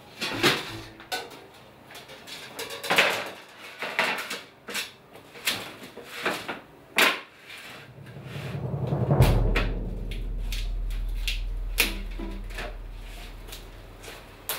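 Dramatic background score: sparse percussive knocks, then a swell that builds to a deep boom about nine seconds in and rings on low, slowly fading.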